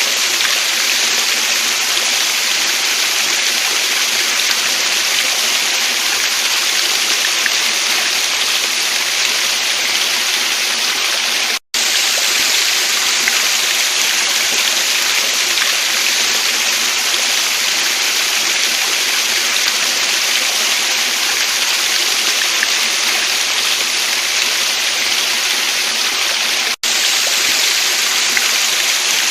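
Waterfall stream: a steady rush of falling water, a bright even hiss. It drops out for a split second twice, about twelve seconds in and near the end.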